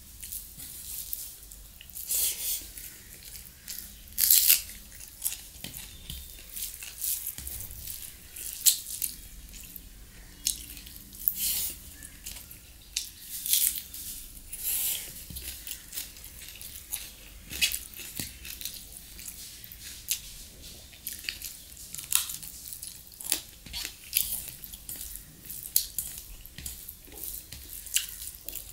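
A person chewing mouthfuls of rice and chicken curry eaten by hand, with fingers squishing the rice in a steel bowl: many short, irregular, wet crackly clicks.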